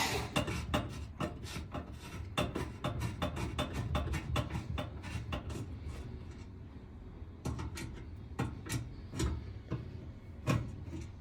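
A Phillips screwdriver backing a screw out of the oven's gas panel by hand: a quick run of small clicks and scraping taps, thinning to a few louder clicks later on.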